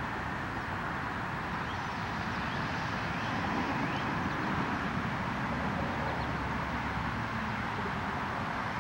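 Steady traffic noise from a freeway, an even wash of tyre and engine sound that swells slightly midway.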